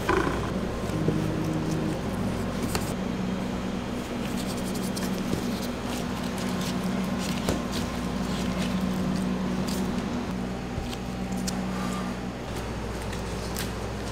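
Steady low machine hum of several held tones, with scattered light taps and clicks from dough balls being handled and set down on a stainless-steel worktable.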